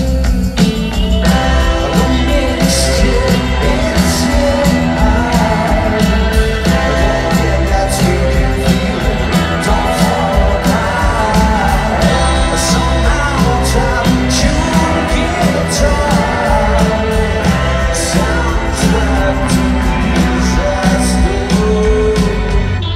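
Live rock band playing loud through a concert sound system, with sung vocals over bass, guitars and drums, heard from among the audience.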